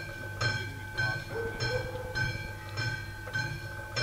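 Railway level-crossing warning bell ringing in a steady rhythm, just under two strokes a second. It is the crossing's alarm for an approaching train.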